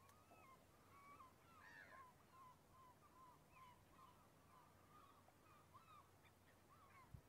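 A distant flock of birds calling faintly: many short, overlapping calls, one after another without a break. A single soft knock comes near the end.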